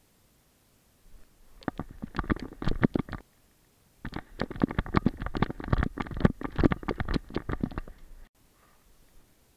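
Rubbing, scuffing and knocking noise from a GoPro Fetch camera harnessed to a walking Weimaraner's back: the dog's body, fur and straps working against the camera housing. It comes in two bursts of rapid, irregular knocks, one about a second in and a longer one from about four seconds in.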